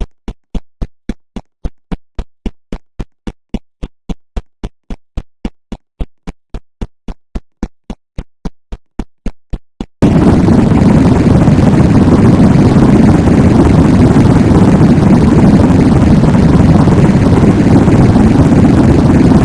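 An electronic beat of short kick-drum thumps, about three and a half a second. About ten seconds in, it gives way to a very loud, distorted noise blast that holds steady.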